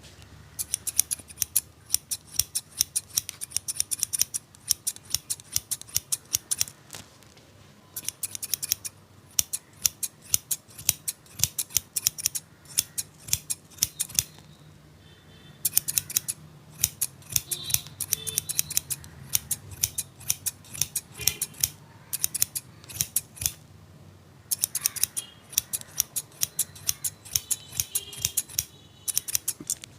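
Barber's scissors snipping hair in rapid runs of snips, broken by short pauses.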